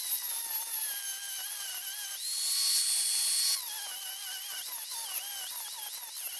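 A small high-speed power tool whining at full speed, its pitch sagging and wavering as it bears down on the metal of a welded gear. It spins back up to full speed about two seconds in, then is loaded again from about three and a half seconds, its pitch dipping unevenly.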